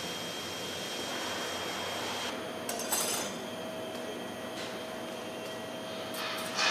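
TIG welding arc on a sheet-metal cone, giving a steady hiss with a thin high whine. About two seconds in, this gives way to a steady workshop hum with a few sharp metal clinks and knocks as the cone is handled.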